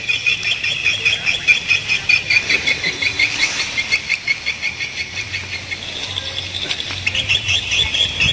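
Continuous high-pitched chirping from wildlife, in rapid pulses, with a faint low hum beneath.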